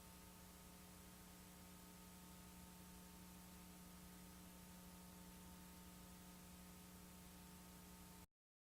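Near silence: a faint steady electrical hum with hiss from the recording itself, cutting off to total silence about eight seconds in.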